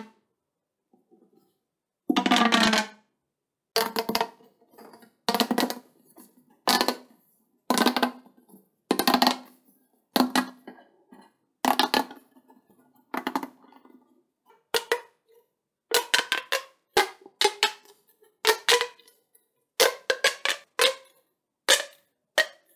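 Keycraft Pop Tubes, corrugated plastic fidget tubes, being stretched and squashed by hand, their ridges snapping through in quick rattling runs. In the first half these come as short buzzing bursts about every second and a half; in the second half they turn into sharper clusters of separate clicks.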